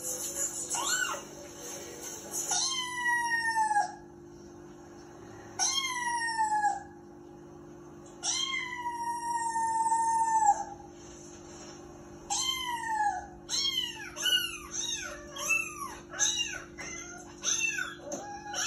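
Kitten meowing through a television speaker: four long mews that fall in pitch, then a quick run of short mews, about two a second, near the end.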